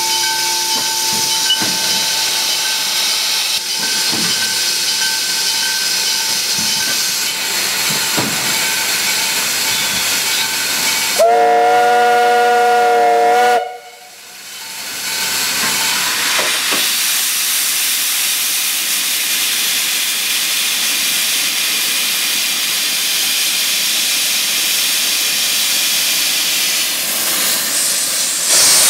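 Narrow-gauge steam locomotive NG 123 standing with a steady hiss of steam. About halfway through, its whistle blows once for a little over two seconds as a chord of several notes and stops abruptly. Near the end a loud blast of steam hisses out from the cylinder drain cocks as the engine starts to move off.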